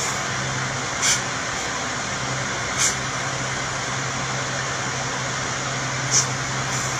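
Steady hum and rush of a fan running in a small room, with three short breathy sounds about one, three and six seconds in.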